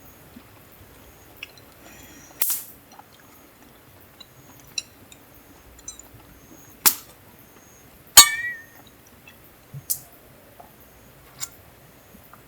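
Tableware clinking during a meal: a few separate sharp clinks and knocks of utensils against dishes, the loudest about eight seconds in, ringing briefly.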